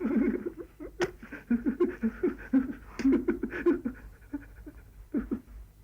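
A child coughing in fast runs of short, voiced coughs: a whooping-cough fit. The coughs thin out near the end.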